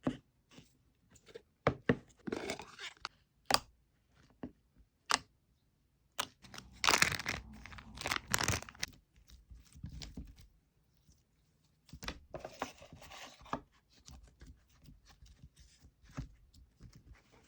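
Soft, chewy slime being handled close to the microphone: scattered sharp clicks and pops, with three longer stretches of crackly, tearing noise as it is stretched and pressed.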